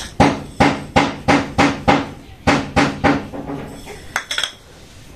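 Rapid, even knocking blows, about three a second, each with a short ring; they stop a little over three seconds in and are followed by a few quick, lighter clicks.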